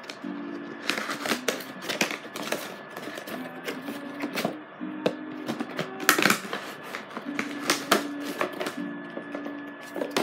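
Irregular sharp clicks and crackles of a headphones box and its packaging being handled and opened, over background music with low held notes.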